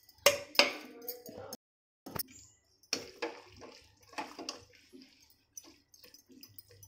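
Metal spatula scraping and clinking against a metal pan while stirring cooked macaroni, with soft squishy turning of the pasta; a run of irregular strokes, loudest in the first second.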